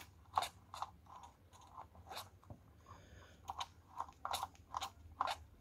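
Faint, irregular clicks and soft puffs from a tiny live-steam toy car's engine under steam pressure as it just about starts to run, with a brief faint hiss about three seconds in.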